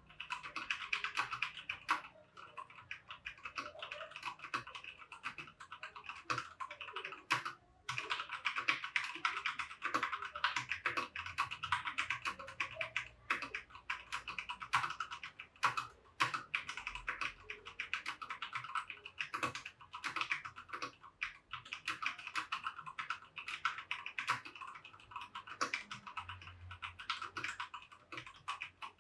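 Typing on a Keychron K2 Version 2 mechanical keyboard with Brown (tactile) switches: a continuous stream of quick keystroke clacks. There is a short pause about seven and a half seconds in.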